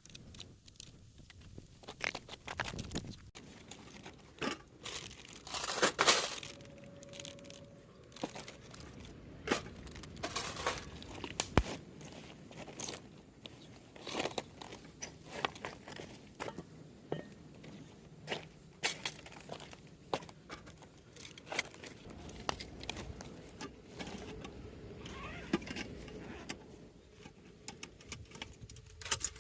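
Irregular handling noises: many sharp clicks and light clinks with crinkling and tearing, and one louder rustle about six seconds in.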